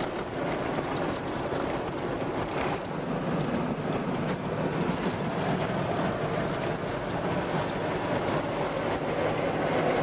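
Four-wheel-drive vehicle driving on a rough, corrugated sand track, heard from inside the cabin: steady engine and tyre noise with occasional knocks and rattles.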